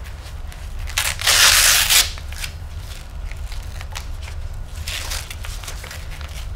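Chest strap on a power wheelchair being fastened. About a second in there is one loud rasping rip lasting about a second, then fainter rustles of the strap.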